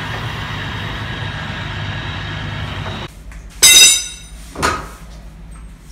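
Debris grapple truck's engine and boom hydraulics running steadily while it loads debris. About three seconds in it gives way to a loud ringing metal scrape on a concrete floor, with a shorter one a second later.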